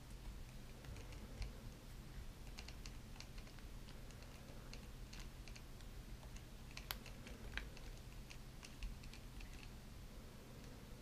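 Faint, irregular clicks and taps of hard plastic as a small accessory is handled and fitted onto a plastic action figure, with one sharper click about seven seconds in.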